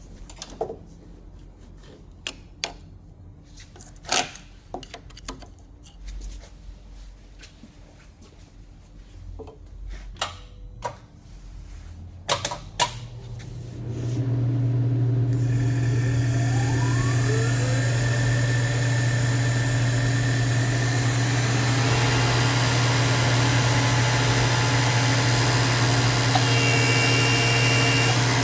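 Scattered clicks and knocks of parts being handled, then about halfway through a motor-driven machine starts up. It runs with a steady hum and a whine that rises in pitch as it comes up to speed, then holds steady.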